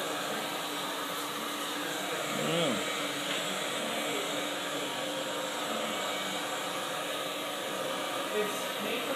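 A steady whooshing machine noise, like an electric blower running, with faint voices in the background about two and a half seconds in and again near the end.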